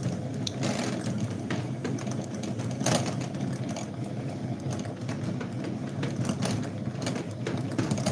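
Yarn ball winder turning steadily as it winds yarn into a cake: a continuous mechanical whirr with irregular light clicks and a sharper click about three seconds in.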